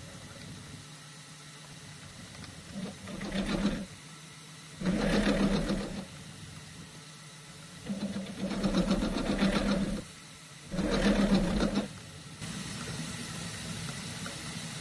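Milling machine taking a facing cut across an aluminium block. The spindle runs steadily, and the cutter bites into the metal in several loud cutting bursts of one to two seconds as the table is cranked back and forth beneath it. The head is out of tram, so the cutter cuts harder on the front edge than the back.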